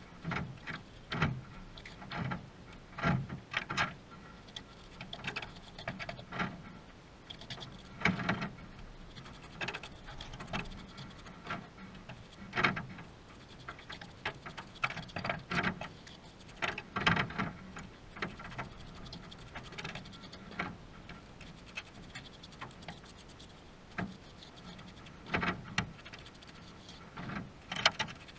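A trowel scraping and knocking as wet sand-and-cement mortar is laid and shaped on a chimney stack. The knocks and scrapes are irregular, a few seconds apart, with several louder knocks.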